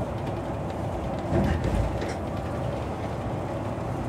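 Inside a MAN shuttle bus cruising at speed: a steady drone of engine and tyres. About a second and a half in comes a brief louder bump with some rattling, as the wheels run over a joint in the road surface.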